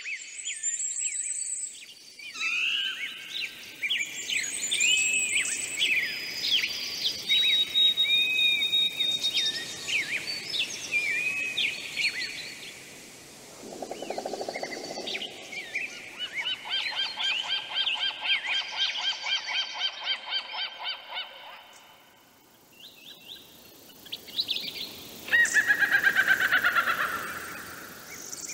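Several songbirds singing: chirps, whistled up-and-down notes and rapid trills, one after another. The loudest is a fast descending trill near the end.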